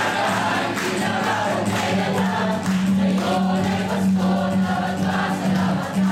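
A mixed choir of men and women singing a Christmas carol together, accompanied by a strummed acoustic guitar.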